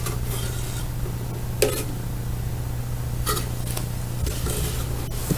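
Items and packaging being handled: a few short rustles and knocks, about a second and a half apart, over a steady low hum.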